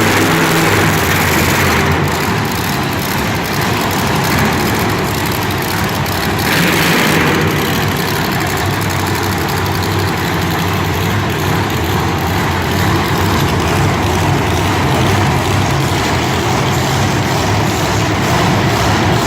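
Loud, heavy vehicle engine running steadily under a dense wash of noise, with a brief brighter swell about six to seven seconds in.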